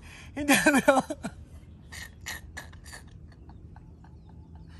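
A man's voice in a short wordless outburst about half a second in, then four or five short, sharp breaths.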